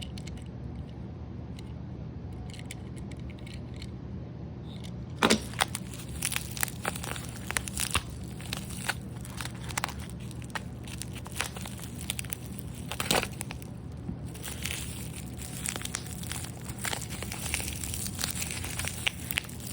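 Plastic-and-cardboard blister packaging of a Hot Wheels die-cast car being cut and torn open, a dense run of crinkling and crackling. It starts about five seconds in, after a stretch of low steady hum.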